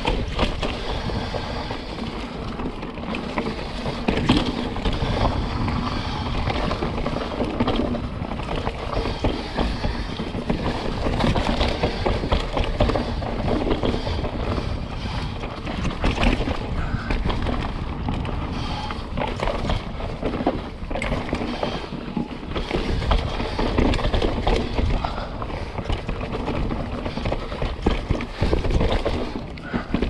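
Mountain bike riding fast down a dirt trail: a steady rush of tyres and air with frequent knocks and rattles from the bike over bumps and roots.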